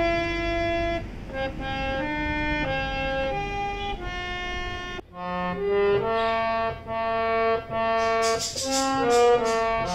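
Harmonium melody, one held reed note after another. About five seconds in it switches to another harmonium recording with a clearer sound, and a few short clicks come through near the end.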